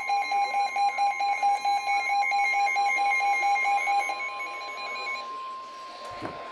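Emergency Alert System warning alarm, signalling a severe thunderstorm warning: fast, evenly pulsing beeps over a steady single alert tone near 1 kHz (the NOAA Weather Radio 1050 Hz warning tone). The beeping stops about four to five seconds in, leaving the steady tone, and a short low thump comes near the end.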